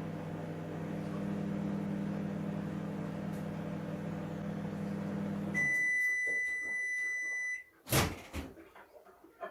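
Microwave oven running with a steady hum that stops about halfway through, followed by one long beep of about two seconds signalling the heating cycle is finished, then a couple of sharp clicks.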